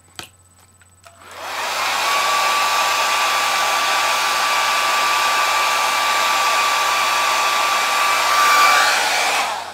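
Handheld hair dryer switched on about a second in, blowing steadily with a thin steady whine, then switched off just before the end. A single click comes just before it starts.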